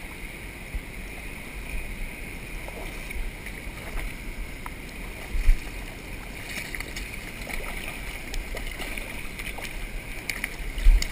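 Steady rush of a fast-flowing creek, with a couple of dull bumps on the microphone about halfway through and near the end.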